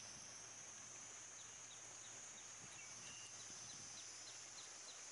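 Faint outdoor nature ambience: a steady high-pitched insect drone with soft, scattered bird chirps, and in the second half a run of short high chirps about three a second.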